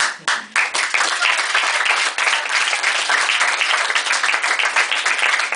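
An audience applauding: a few separate claps at first, then dense, steady applause from about a second in.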